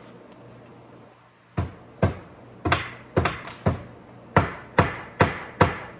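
A hammer striking a bent motorcycle chain link plate about nine times in quick taps, roughly two a second, starting about a second and a half in. The blows flatten the link so the master link will sit flush.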